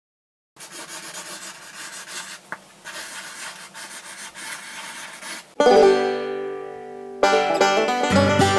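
Felt-tip marker scratching and rubbing over paper in uneven strokes for about five seconds. Then a loud plucked-string chord rings out and fades, and lively plucked-string music starts, with a bass line joining near the end.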